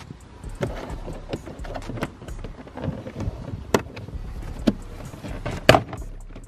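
Plastic trunk sill trim of a Toyota 86/BRZ being pried and pulled up by hand: a series of sharp clicks and knocks from the trim and its clips, the loudest near four and near six seconds in, over rustling handling noise.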